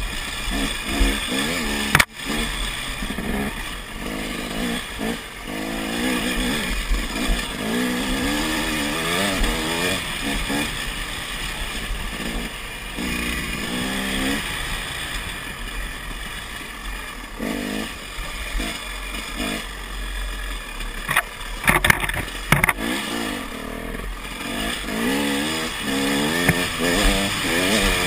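KTM dirt bike engine revving up and down as the bike is ridden along a trail. There is a sharp knock about two seconds in and a cluster of knocks about three-quarters of the way through.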